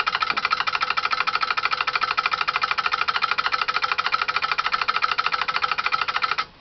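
Homemade relay-switched DC motor built from microwave-oven transformer coils and magnetron magnets, running with a rapid, even chatter from its switching relays. The sound cuts off suddenly near the end.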